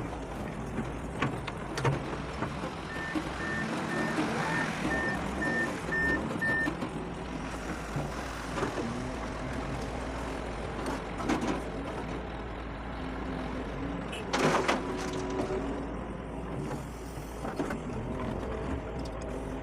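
Doosan DX140 excavator running steadily while loading soil, with scattered knocks. A warning beeper sounds about eight times in quick succession a few seconds in, and a short loud burst of noise comes about fourteen seconds in.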